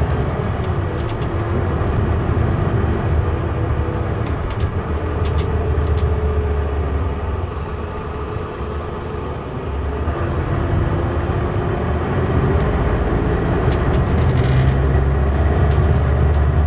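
Mercedes-Benz O560 Intouro bus's diesel engine heard from inside the passenger cabin while driving: a steady low drone that eases off about eight to ten seconds in and builds again near the end. Short clicks and rattles come through now and then.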